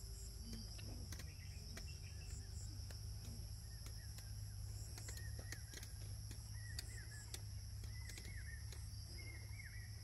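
Rural paddy-field ambience: wind rumbling on the microphone under a steady, high insect drone of crickets. From about four seconds in, a bird gives short, repeated, downward-swooping calls.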